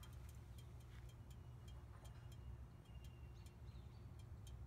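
Near silence: faint outdoor background with a low steady hum, a few scattered faint ticks and a faint bird chirp.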